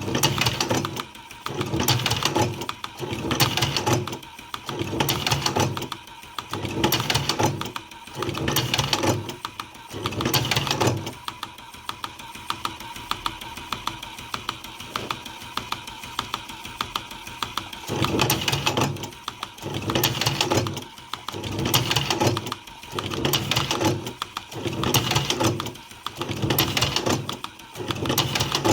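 Electric tobacco rolling machine running in short, even cycles of about one a second. It pauses for several seconds in the middle with only faint rapid ticking, then resumes, over a steady high hum.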